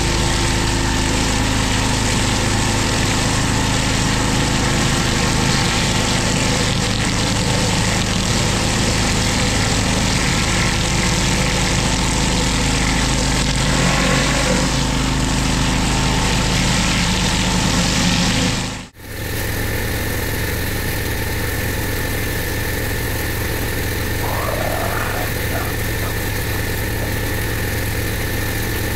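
A pressure washer's engine running steadily under the hiss of a BE 16-inch Whirl-A-Way rotary surface cleaner spraying water onto block paving. About two-thirds through, the sound drops out for a moment and comes back slightly quieter.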